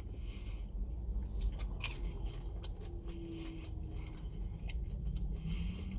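A person chewing a chicken McNugget, with scattered irregular mouth clicks over a low steady rumble.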